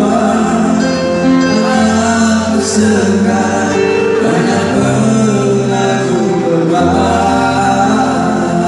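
A man singing into a microphone over live band music, amplified through PA speakers, with steady bass notes under the melody.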